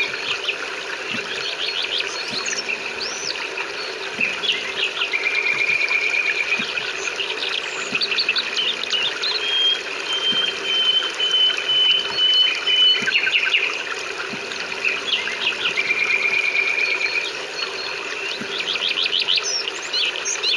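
Songbirds singing over a steady wash of rain: quick repeated trills, short whistled notes, and one long high whistle held for about three seconds near the middle.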